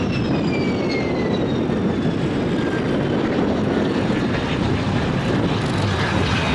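Aircraft engine noise: a loud, steady rumble with a high whine that falls in pitch over the first two to three seconds.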